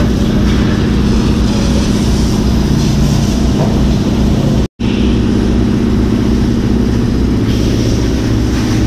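Pressure washer spraying water against a truck's cab and chassis over the steady hum of its pump motor. The sound cuts out for an instant about halfway through.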